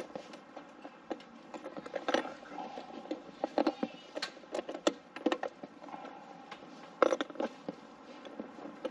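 Irregular light clicks, taps and small knocks of small metal and plastic parts being handled during an electrical fixture install. The sharpest knocks come about two seconds in and again around seven seconds.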